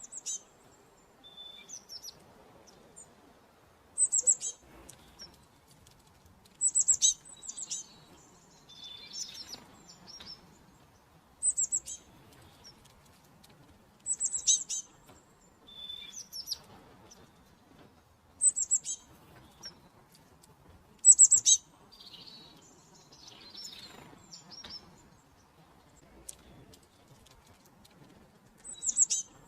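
Small songbirds chirping: short, high-pitched phrases repeated every few seconds, with a few lower single notes between them.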